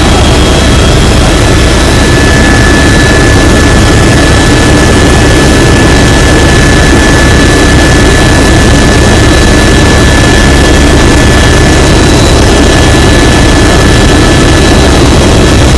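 Helicopter in flight heard from inside the cabin: a loud, steady engine and rotor din with a steady high whine over it.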